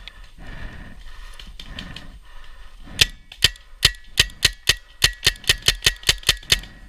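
A gun fires a rapid string of about fourteen sharp shots, roughly four a second and slightly uneven, starting about three seconds in. Before the shots there is soft rhythmic rustling of movement.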